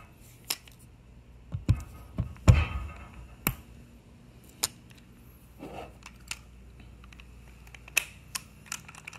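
Scattered sharp clicks and knocks of an impact wrench and a retaining-ring install block being handled on a wooden bench while the wrench's anvil is pushed into a new retaining ring. The loudest is a knock with a short rattle about two and a half seconds in.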